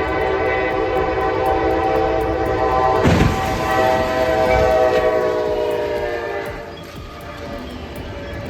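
A locomotive air horn sounds a long continuous chord while a train approaches a crossing. About three seconds in there is a sudden loud crash, the train striking a vehicle. The horn then drops slightly in pitch and fades as the train passes.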